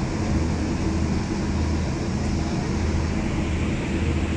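Deep bass booming from a large truck-mounted sound system, swelling roughly once a second over a steady hum.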